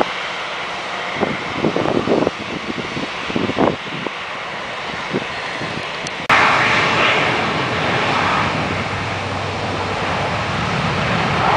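Distant jet airliner engines running as the aircraft climbs out after takeoff, with gusts of wind buffeting the microphone. About six seconds in, the sound cuts abruptly to the louder, steady rush of an Airbus A340-600's four Rolls-Royce Trent 500 engines as it moves slowly along the runway close by.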